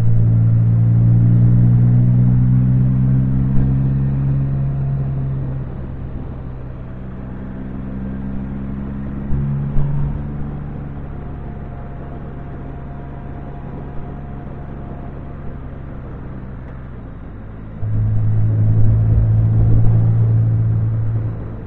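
Can-Am Spyder engine heard from the rider's seat, pulling under throttle with its note climbing over the first few seconds, easing off through the middle, then loud and steady again for the last few seconds, over steady road noise.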